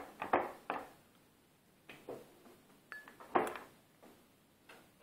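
The speed selector dial on a CVA Mk.1A metal lathe's headstock cover being turned by hand, giving a handful of separate clicks and clunks. The loudest come about a third of a second in and about three and a half seconds in.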